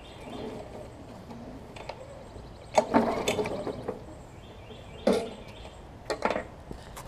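Briggs & Stratton Classic push-mower engine being pull-started several times, the recoil starter rattling as it turns the engine over without catching. The engine pops as it is pulled, typical of the stuck intake valve the owner suspects.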